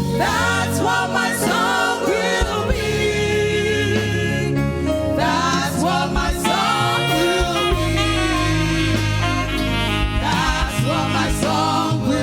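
Gospel praise-and-worship music: a voice singing over a steady band accompaniment.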